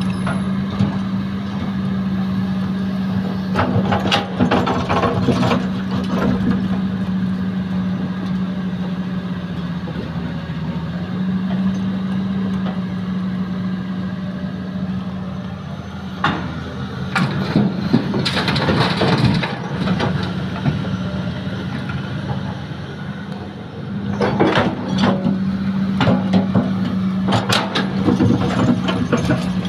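Heavy diesel engine of a Hitachi excavator running steadily, with three stretches of crashing, rattling noise as soil is loaded into a dump truck.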